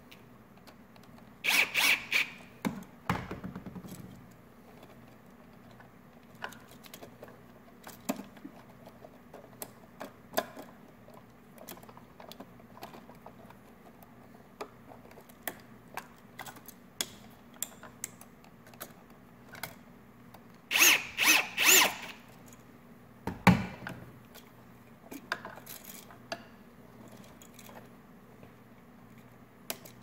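Hand work on a new 3-way light switch and its wires: scattered small clicks and rattles, with two louder bursts of rapid clicking, one about two seconds in and one about 21 seconds in, and a single dull thump just after the second. A faint steady hum runs underneath.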